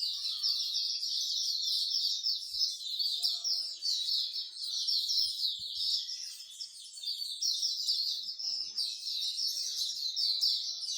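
Many songbirds chirping at once: a dense, continuous chorus of rapid high chirps and trills.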